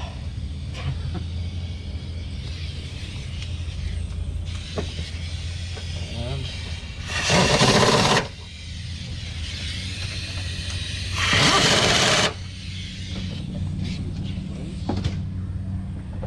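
Two loud hissing bursts of about a second each, a few seconds apart, over a steady low hum.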